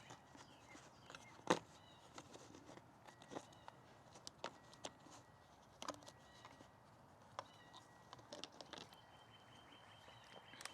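Scattered faint clicks and knocks of plastic parts being handled as the dryer vent cleaner's attachment and rod are worked into the vent opening, one sharper knock about a second and a half in, over a quiet background with a faint steady high tone.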